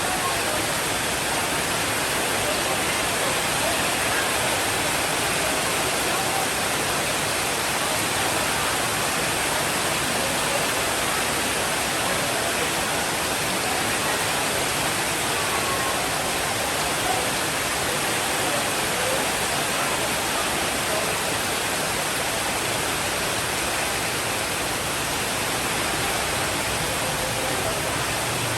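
Steady, heavy rainfall: a dense, even hiss with no thunder in this stretch.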